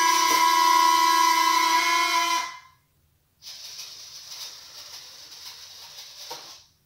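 The RC jet's retractable landing gear motors whine steadily while the gear retracts, then cut off abruptly about two and a half seconds in. A fainter steady hiss follows until near the end.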